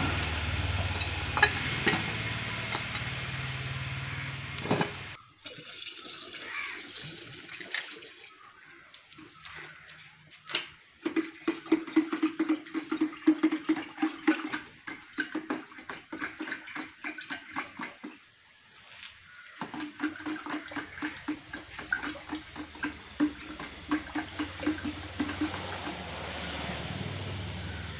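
Liquid poured from a paint tin into a plastic jar and stirred with a stick, mixing paint: a steady pouring rush, then a long run of rapid clicking and knocking.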